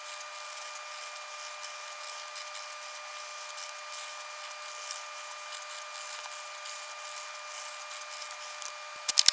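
Sped-up sound of a chisel-tip marker drawing on graph paper: a steady hiss with a faint whine and scattered small scratches. A few loud sharp clicks come near the end.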